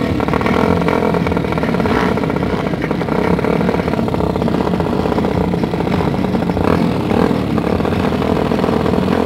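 Small modified step-through drag moped engines running loudly and steadily on the start line, a rapid even engine beat with no big rise or fall in pitch.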